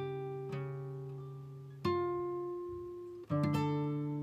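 Background music of slow, plucked acoustic-guitar notes, each ringing out and fading before the next few are played.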